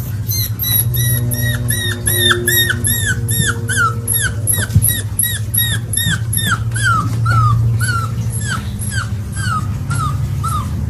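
Golden retriever puppy whimpering in its sleep: a steady run of short, high squeaks that drop in pitch, about three a second, over a steady low hum.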